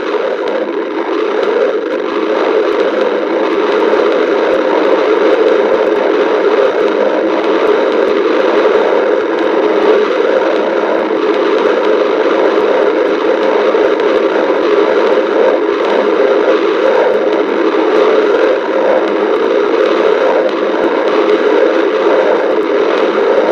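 Human stomach growling: a continuous rumbling that runs on without a break.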